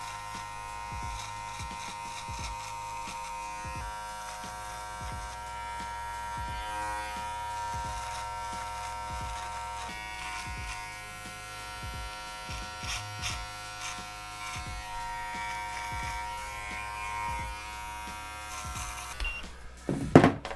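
Electric beard trimmer running steadily as it trims the mustache and beard. It cuts off about nineteen seconds in, followed by a brief loud knock near the end.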